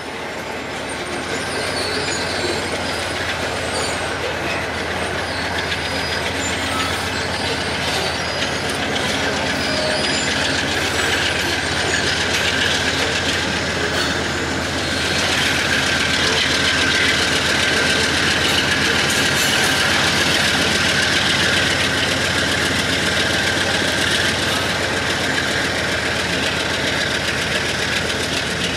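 A freight cut of covered hopper cars rolls past with steady wheel-on-rail noise, shoved by two Canadian Pacific GE diesel locomotives. The locomotives come by about halfway through, and the sound grows louder as their engines pass, with a thin steady squeal on top.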